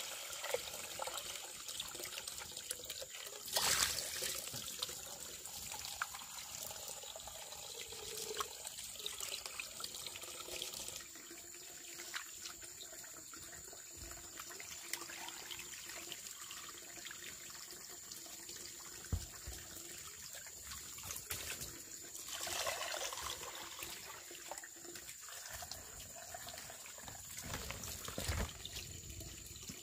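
Water running and trickling steadily, as from a tap or spout, with a few brief knocks.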